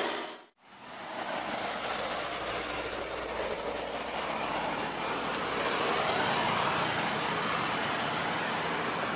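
Road traffic noise on a mountain road: engines and tyres of a cargo truck, cars and a motor scooter passing close by, a steady rushing sound with a steady high-pitched whine over it. The sound fades out briefly about half a second in and comes back.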